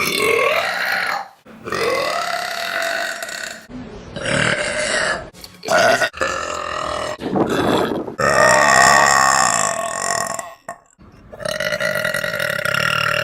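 Women belching: a string of about six long, drawn-out, pitched burps, one after another, with short breaks between them.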